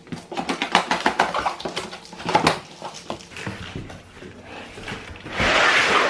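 A cardboard box being cut open: a knife slitting packing tape with quick crackling clicks through the first couple of seconds, then a loud scraping rustle near the end as the cardboard lid is pulled back.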